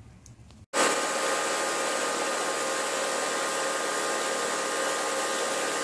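A power tool running steadily with a hissing whir, used to unbolt the lower unit of an Evinrude 60 HP outboard; it starts abruptly about a second in and stops near the end.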